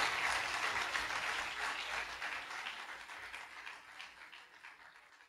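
Audience applause at the end of a song recording, fading out steadily until it cuts off at the very end.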